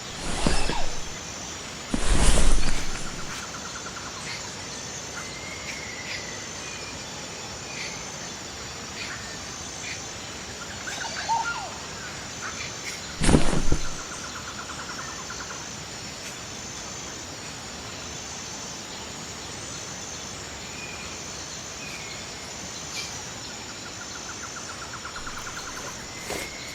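Forest ambience: insects chirring steadily in a high, evenly pulsing tone, with scattered short bird chirps and trills. Three loud, brief knocks or rustles come near the start, about two seconds in, and about halfway through.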